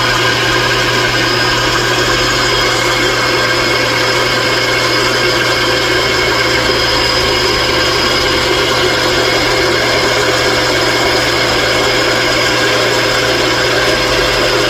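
Metalworking machine tool running steadily under power: a constant motor hum with several fixed whining tones.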